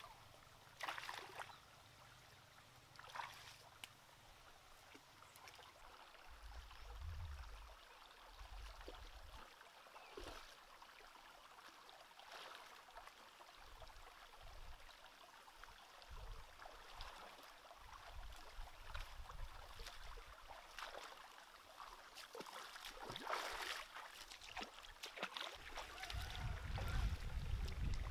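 Shallow rocky stream trickling, with the splashes of bare feet wading through the water every so often. A low rumble comes in near the end.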